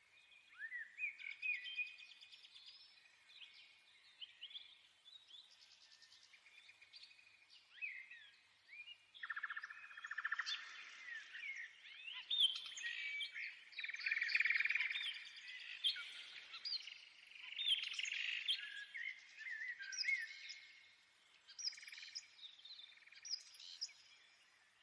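Birds chirping and twittering: many short rising and falling calls overlapping, busiest in the middle stretch.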